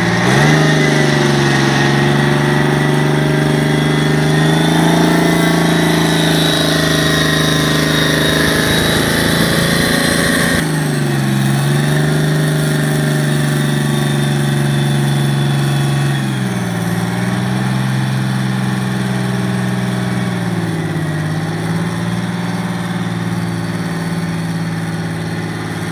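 Detroit Diesel 6V-53T turbocharged two-stroke V6 diesel running at a steady fast idle, with a high whine over it. From about the middle on, its speed sags briefly and recovers three times.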